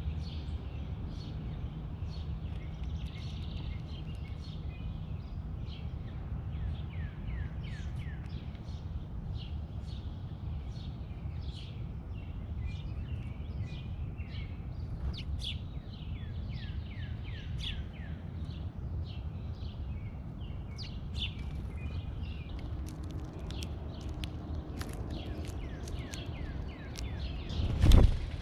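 Backyard birds chirping with many short, high calls over a steady low rumble, and a loud thump near the end.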